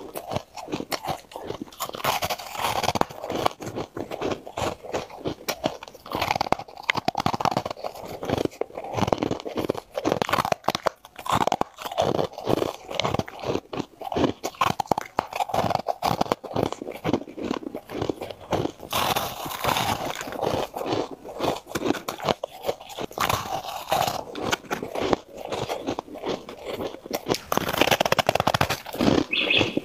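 A person biting and chewing crunchy, frosty ice: a dense, irregular run of crisp crunches and crackles as the chunks break between the teeth.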